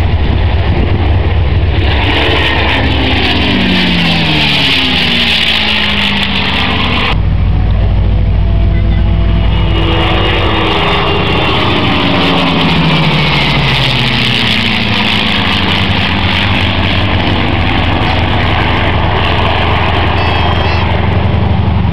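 Piston aero engines of a Spitfire PR XIX (Rolls-Royce Griffon V-12) and a P-51D Mustang (Packard Merlin V-12) flying past. The engine drone falls in pitch on each pass, twice, and the sound changes abruptly a little after seven seconds.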